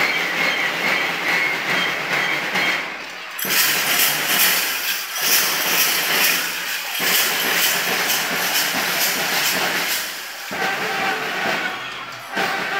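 Loud, dense crowd noise, with a quick, even beat running through the middle of it.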